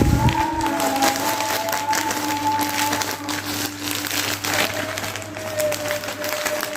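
Dense crinkling and crackling of plastic parcel packaging being handled and opened, over a few long held notes of background music.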